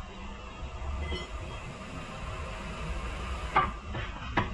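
Low, steady workshop rumble, with two short knocks near the end as metal suspension parts on the floor are handled.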